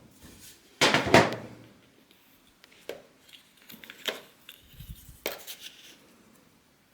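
A series of knocks and clatters from objects being handled, the loudest and longest about a second in, followed by three lighter knocks.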